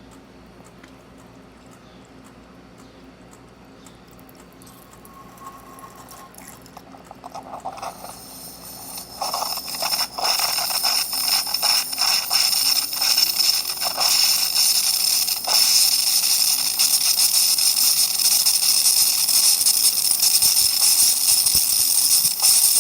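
Saeco Incanto Deluxe espresso machine's steam wand opening up: low at first, then a hiss that builds over a few seconds, with irregular pops as it gets going, and settles into a loud, steady rush of nice strong steam.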